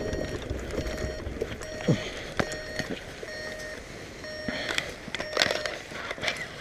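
Paramotor trike rolling over bumpy grass. The frame rattles and clicks, and short squeaks come now and then. The rumble fades as it slows down.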